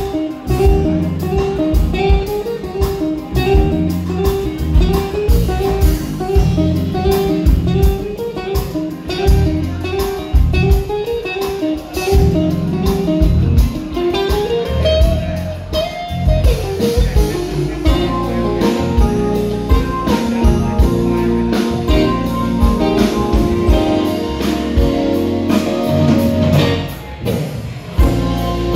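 A live band playing blues-style music: a guitar melody over bass and drums, with a note sliding upward about halfway through.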